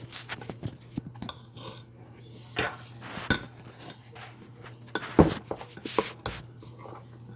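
Kitchen utensils and dishes clinking and knocking: an irregular string of light clicks and clunks, with the loudest knock about five seconds in.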